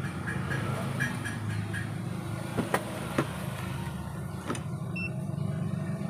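Steady low mechanical hum, with a few sharp clicks and knocks about halfway through as a soldering iron and a spool of solder are picked up and set down.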